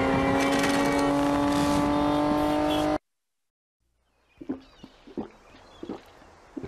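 Car engine running hard at high revs, its pitch climbing slowly as the car speeds up, cut off suddenly about three seconds in. After a short silence, a few faint soft knocks.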